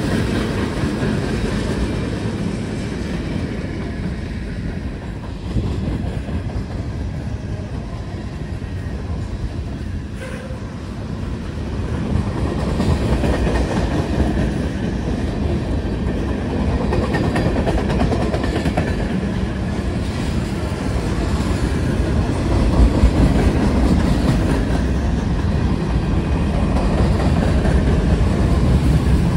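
Freight train cars rolling past close by, a steady rumble of steel wheels on rail that grows louder about twelve seconds in.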